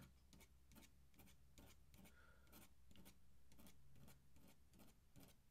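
Fine paintbrush laying black ink on drawing paper: a run of faint, short strokes several times a second, close up.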